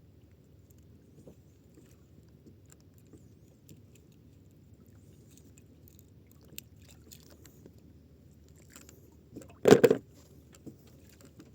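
Steady low rumble aboard a small fishing boat, with faint scattered clicks of fishing tackle being handled. About ten seconds in there is one loud, brief clatter lasting about half a second.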